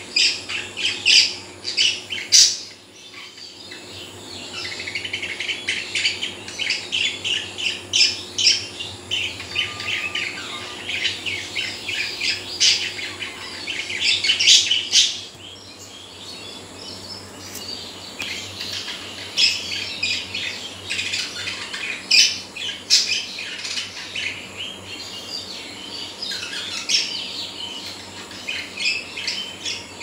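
Pet budgerigars chattering in a rapid, continuous stream of high chirps and warbles, the courtship chatter of a pair. There are short lulls about three seconds in and about halfway through.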